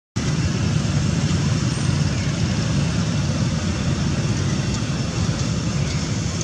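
Steady low rumbling noise with no distinct calls, knocks or other events standing out of it.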